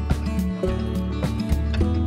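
Music with a steady beat: a drum hit roughly every half second over a held bass line and pitched instrument notes.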